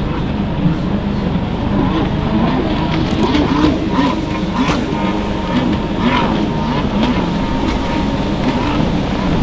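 Racing jet ski engines running hard, their pitch rising and falling as the skis accelerate and turn, over a steady rush of noise.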